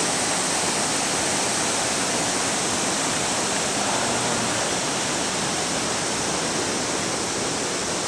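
Waterfalls and river rapids: a steady, even rush of water.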